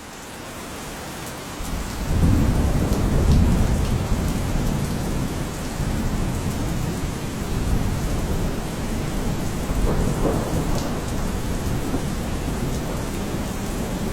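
Steady rain falling, with a low rumble of thunder building about two seconds in and lasting a couple of seconds.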